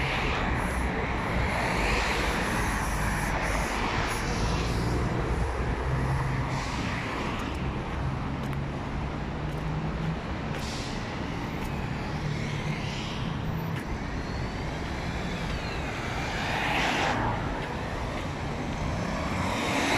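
Busy city road traffic: cars and buses driving past close by, several swishing by one after another, over a low engine hum that fades out about two-thirds of the way through.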